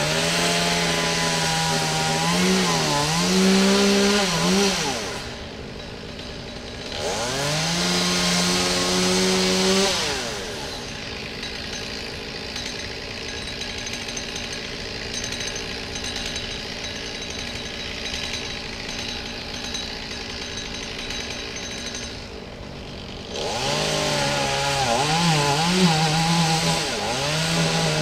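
Two-stroke chainsaw revved to full throttle three times, its pitch wavering up and down at high speed, dropping back to a quieter idle in between, with a long idle stretch in the middle.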